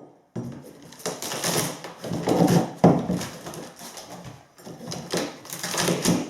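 Irregular knocking, scraping and clattering of hand tools and wood as the carpet gripper rod and rotten floorboards are worked up.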